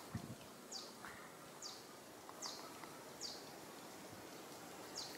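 A bird repeating a short, high call that drops in pitch, about five times at an even pace of roughly one a second. A soft low thump comes right at the start.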